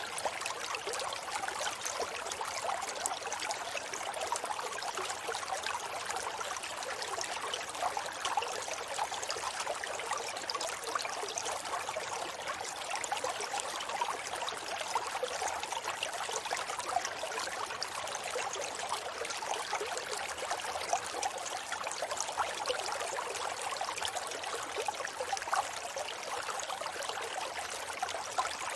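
Forest river flowing steadily, a continuous babbling and trickling of water over stones with many small splashes.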